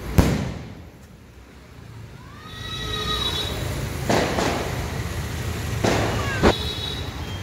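A red 4-inch aerial firework shell bursting with one loud bang just after the start. A low rumble builds up behind it, with a brief whistling tone around three seconds in and further sharp cracks about four and six seconds in.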